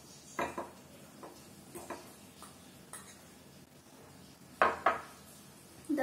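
A metal spoon clinking against a ceramic mug and a small glass bowl as cocoa powder is spooned and tapped into the mug: a string of light taps, then two louder clinks in quick succession near the end.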